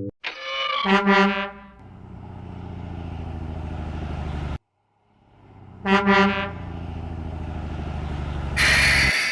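Truck sound effects, played twice: a horn honks, then a diesel-like engine runs steadily for a few seconds. The second run ends in a loud burst of hissing.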